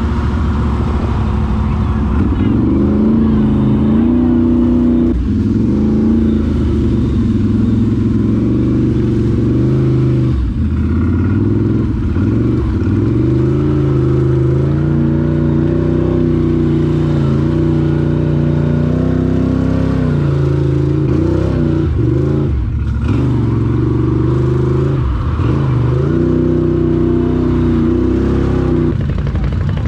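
ATV engine running under throttle, its pitch holding, then shifting and rising as the throttle changes, with brief drops where the throttle is let off a few times.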